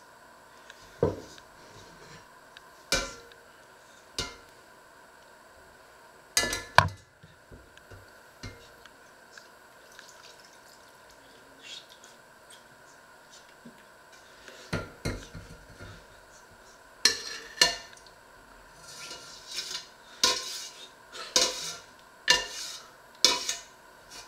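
Metal ladle clanking and scraping against stainless steel pots as soup is ladled from one pot into another. There are a few scattered clanks, then a quicker run of scrapes and knocks near the end as the ladle scrapes the inside of the tilted pot.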